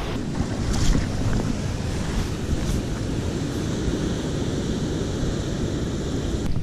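Ocean surf washing over a rocky shore, a steady rushing, with wind blowing on the microphone.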